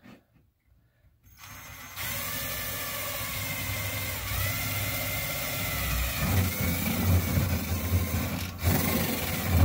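Power drill running under load, boring a hole through the back of a wooden shelf for a light's wire. It starts about a second in, runs steadily with its motor pitch wavering as the bit bites, and breaks off briefly near the end.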